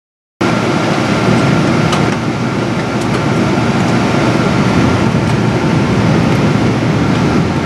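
Airliner cabin noise in flight: the steady, even rush of engines and airflow, with a faint steady tone in it. It starts after a split-second gap.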